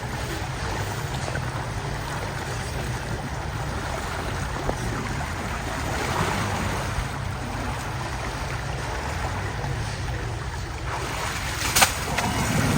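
Steady wind noise buffeting the microphone, with a single sharp click near the end.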